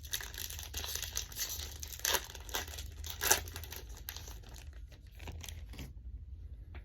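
Foil booster pack of Pokémon cards being torn open and crinkled by hand, with a couple of sharper rips around two and three seconds in; the crinkling dies down near the end.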